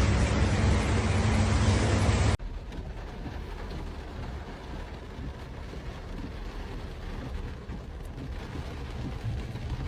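Heavy rain, loud and rushing with a low steady hum under it, which cuts off abruptly about two and a half seconds in; after that a quieter, steady hiss of rain.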